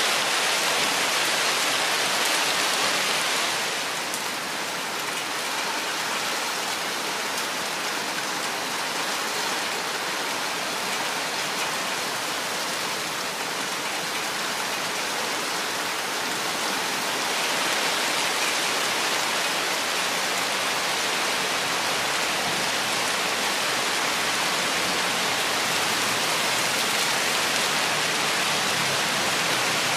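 Steady rain falling. It eases slightly about four seconds in and grows heavier again a little past halfway.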